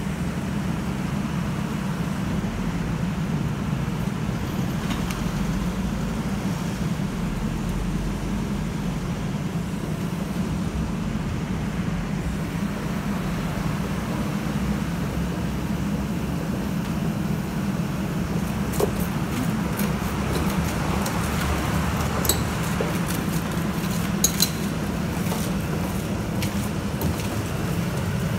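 Diesel engine of a Soilmec SR-45 crawler drilling rig running steadily as the rig travels slowly on its tracks. In the last third, scattered sharp metallic clicks and a few louder knocks.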